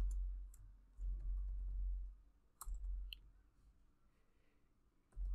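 A few scattered computer keyboard key clicks as text is typed, over a faint low hum.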